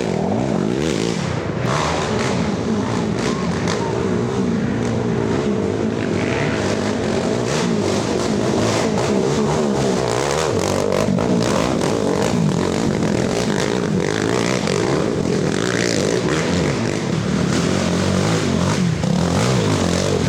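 Several race ATVs' engines revving hard and shifting as the quads race past. Their pitches rise and fall over one another without a break.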